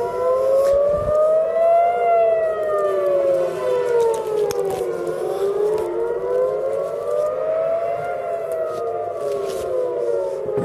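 Civil defence air-raid sirens wailing, at least two of them overlapping out of step, the pitch rising and falling slowly in a cycle of about six seconds. This is the warning of an incoming rocket salvo.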